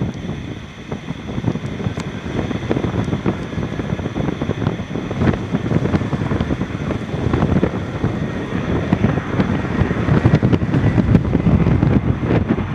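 Strong, gusty wind buffeting the microphone in a rough, rumbling rush that swells and drops, growing louder in the second half.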